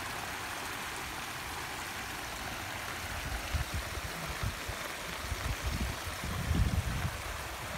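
Rushing floodwater spilling over an eroded bank into a swollen, muddy backyard stream: a steady, even rush. From about three seconds in, low irregular buffeting on the microphone grows stronger.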